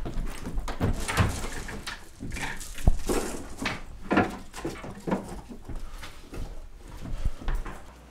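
Irregular knocks, thumps and rustling as someone rummages through things in a room, with a few sharper knocks about three and four seconds in.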